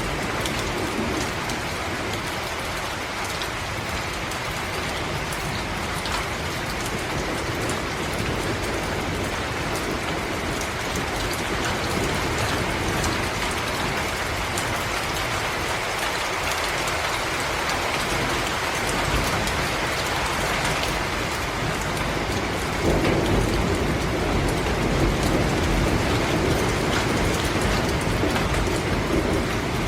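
Steady rain falling, a dense hiss with the ticks of individual drops, growing heavier about two-thirds of the way through.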